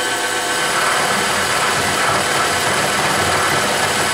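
Bridgeport milling machine running in high gear at about 1100 rpm, its three-phase motor fed from a VFD, while the bit plunge-cuts into a metal block. It makes a steady running sound with several held tones over a rough cutting noise, at a spindle speed the machinist judges a little on the fast side for the cut.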